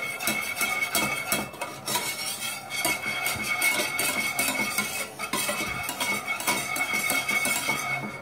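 A spatula scraping and clicking quickly and repeatedly against a stainless steel pan, stirring butter and flour into a roux as it cooks.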